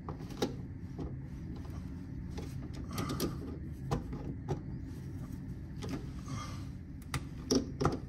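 Screwdriver working the lug screws of an electrical terminal block to check they are tight, giving scattered small metallic clicks and scrapes. A steady low machinery hum runs underneath.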